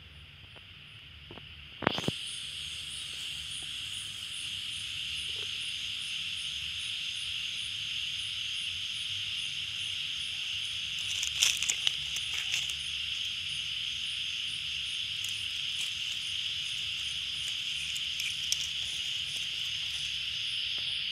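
Night insect chorus: a steady, high-pitched buzz that starts abruptly about two seconds in, just after a knock, with a faint, regularly pulsing chirp above it. A few knocks and rustles from handling come near the middle.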